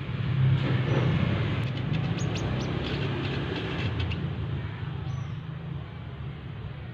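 Road traffic: a vehicle passes, its noise swelling about half a second in and fading after about four seconds over a steady low rumble. A few sharp ticks come around the middle, and two short high chirps come about a second in and about five seconds in.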